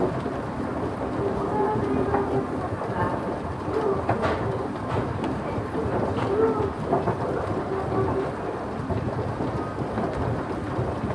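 Department-store escalator, about fifty years old, running with a steady low rumble from its electric drive.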